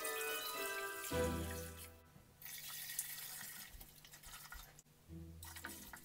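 Vodka poured in a steady stream from a glass measuring cup into a metal pot, splashing onto the chemicals at the bottom. Light background music is heard in about the first second.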